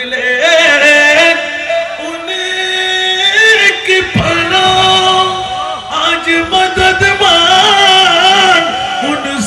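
A man singing a devotional verse in long, drawn-out notes that waver and slide in pitch, with no instruments.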